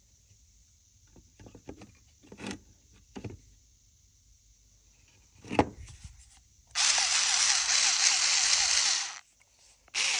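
A few light handling clicks and knocks, then a mini drill's small high-speed motor runs steadily for about two and a half seconds, stops, and starts again near the end.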